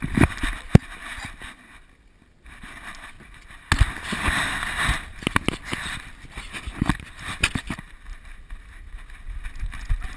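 Handling noise from a GoPro strapped to a dog: irregular knocks and rustling as the camera housing and mount bump and brush against the dog's fur while it moves. There is a brief quiet spell about two seconds in, then a louder stretch of rustling around four to five seconds in.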